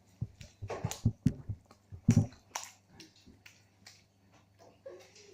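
Slime being squeezed and worked by hand, giving a run of irregular wet clicks and pops, the loudest about one and two seconds in.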